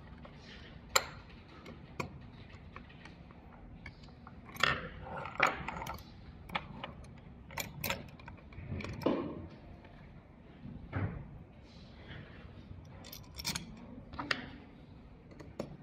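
Steel mounting-bracket parts being handled and fitted together by hand on a desk: irregular metallic clinks, taps and knocks of the bracket bars, bolt and nut against each other and the desktop, with handling rustle between them. A sharp click about a second in is the loudest.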